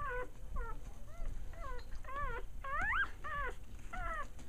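Two-day-old Shetland sheepdog puppies squealing and whimpering in a rapid run of short, high cries that rise and fall in pitch. The loudest is a longer rising squeal about three seconds in. This is the ordinary squealing of newborn puppies at this age.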